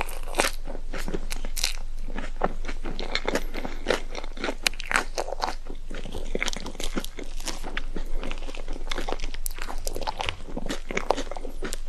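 Close-miked eating: a person biting and chewing crunchy food, a dense run of crisp crunches and crackles.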